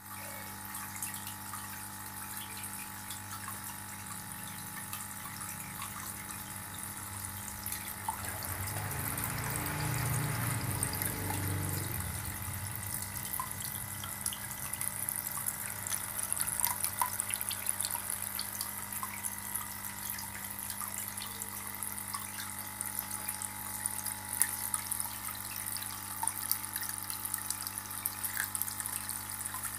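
Aquarium aerator setup: an air pump hums steadily while air bubbles stream up and burst at the surface of the tank water, a continuous fine bubbling and splashing. A louder low rumble swells and fades around a third of the way in.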